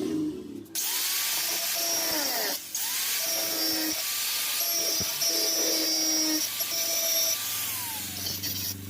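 An electric power tool running on metal with a bright grinding hiss, its motor tone dipping and recovering under load; it starts about a second in, stops briefly at about two and a half seconds, and cuts out near the end.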